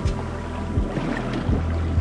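Background music with a regular low beat and sustained chords.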